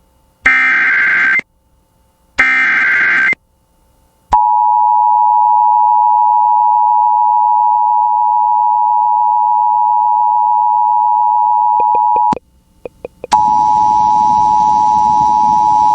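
Emergency Alert System alert opening: two short bursts of screeching SAME digital header data, then the steady two-tone attention signal held for about eight seconds. After a brief gap with a few clicks, a tone sounds again over a hiss of static near the end.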